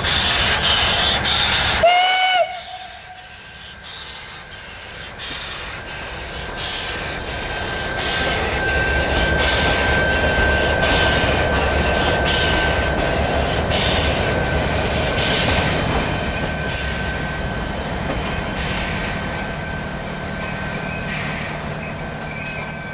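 141R steam locomotive hauling a special train away and past, with a short whistle blast about two seconds in. Then come regular beats about once a second and, in the second half, a steady high squeal from the wheels.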